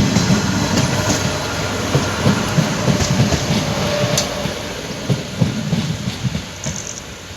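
A train rolling past, its wheels clattering over the rail joints in a run of knocks over a steady rumble, fading as it moves away.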